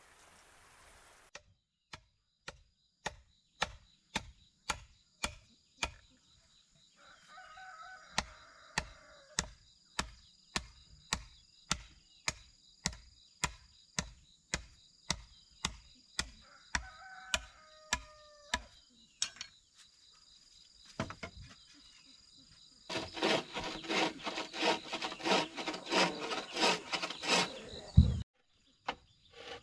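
Steady, evenly paced chopping of wood, about two blows a second, that stops about two-thirds of the way through. A bird calls twice over it, with a faint high insect drone underneath. Near the end comes a few seconds of dense, rough rasping noise.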